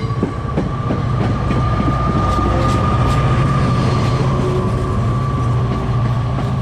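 Diesel commuter train on the Bergen County Line moving through the station: a steady low engine rumble, with wheels clicking over the rails early on and a steady high-pitched tone over it.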